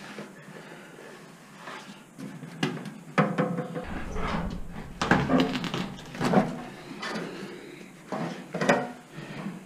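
Ratchet wrench clicking and metal knocks from working loose the bolts of a car's steel fender. The sound comes in irregular bursts, with the loudest clunks about three, five, six and a half and nine seconds in.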